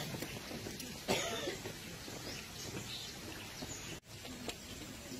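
Outdoor background noise with a sudden crackle about a second in that fades away, and a brief break about four seconds in.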